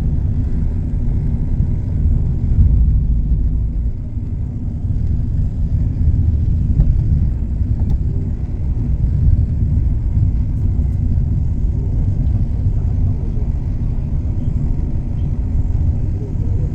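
Steady low rumble of a road vehicle in motion, with the level rising and falling a little throughout.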